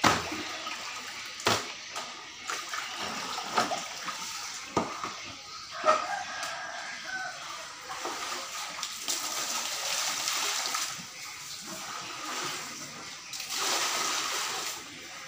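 Water sloshing and splashing in a plastic basin as fish are washed by hand, with a few sharp knocks in the first half. In the last couple of seconds water is poured from a plastic scoop into the basin, a steady splashing pour.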